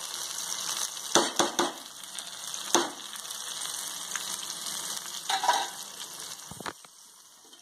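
A spoon scraping and knocking against an aluminium pot as cooked rice is stirred and scooped, a few separate strokes over a steady high hiss. The sound fades away near the end.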